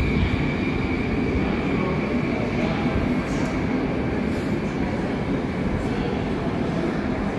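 An 81-717/714 'Nomernoy' metro train standing at an underground platform with its doors open, giving a steady running hum. A thin high whine fades out partway through.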